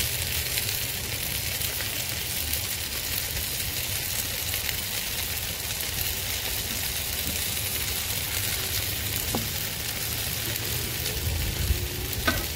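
Burger patties sizzling steadily on a Blackstone 22-inch flat-top steel griddle. A couple of light knocks near the end.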